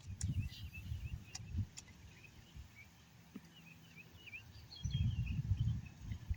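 Small birds chirping and twittering, with wind buffeting the microphone in two gusts, at the start and again near the end. A few sharp clicks in the first two seconds.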